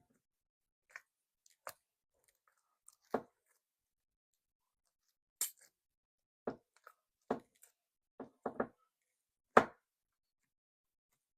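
Slime being squeezed and worked by hand, giving a string of short, irregular sticky clicks and pops, the loudest about two-thirds through.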